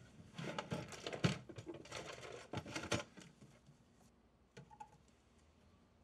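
Hurried rummaging through small objects and packaging on a desk: about three seconds of quick rustling, crinkling and clattering, then a few light clicks.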